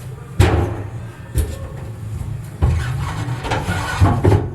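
A few sharp knocks and thuds, then a longer run of clattering knocks, like hard panels and parts being shifted and banged about by hand.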